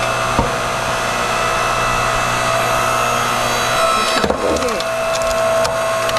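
Tiya 8-ton 2,300 W electric hydraulic log splitter running with a steady hum from its motor and pump. About four seconds in, the log creaks and cracks several times as the wedge splits it.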